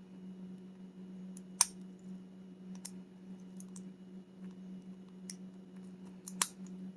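Lock pick and tension wrench clicking against the pins and plug of a pin-tumbler rim cylinder as it is being picked: a few scattered light clicks, a sharp one about one and a half seconds in and two close together near the end, over a steady low hum.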